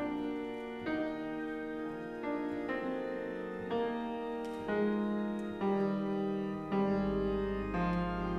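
Slow instrumental keyboard music in held chords that change about once a second, with a deep bass note coming in near the end.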